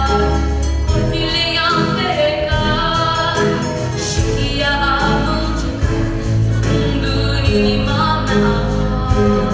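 A young girl singing a song solo into a handheld microphone, her voice holding and gliding between notes over instrumental accompaniment with a steady beat.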